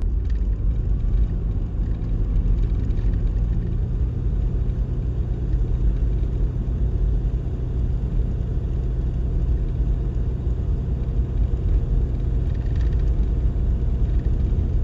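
Steady low rumble of a vehicle driving: engine hum and road noise, running evenly throughout.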